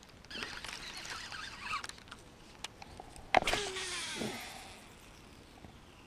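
Fishing tackle being handled: a sharp click about three and a half seconds in, then a whirr that falls in pitch over about a second, like a baitcasting reel's spool spinning down. Faint high chirping comes before it.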